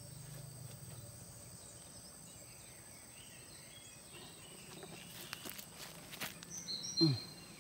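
Quiet outdoor ambience with a faint insect buzz, light rustling and a few clicks in the second half. Near the end come a few short high chirps and a brief low falling sound, the loudest moment.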